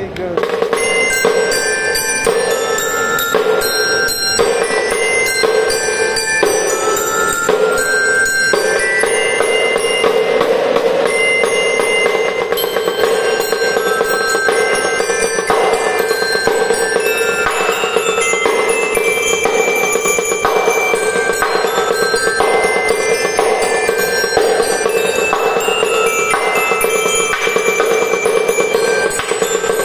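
Drum and lyre band music: bell lyres ringing out a melody over fast, continuous snare drumming.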